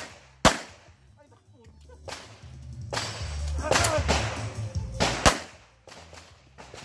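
Pistol shots at close range: two sharp cracks about half a second apart at the start, then another single shot about five seconds in. In between there are quieter sounds with music under them.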